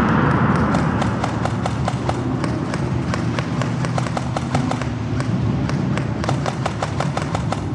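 Airsoft guns firing in quick single shots: sharp cracks several times a second, over a steady low rumble.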